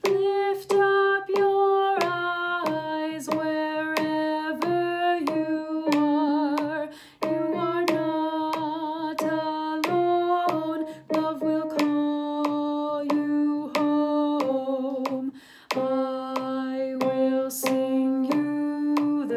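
A woman's alto voice singing a slow choral melody alone, note by note, with vibrato on the held notes. A sharp click falls at a steady pace of a little under two per second, like a beat being kept.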